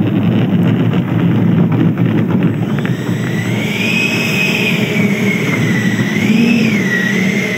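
Electric ducted fan (JETFAN-120 PRO) of an RC jet at low throttle while the model taxis on grass. A steady rough rumble runs throughout, and about three seconds in a thin fan whine comes in, its pitch wavering up and down with the throttle.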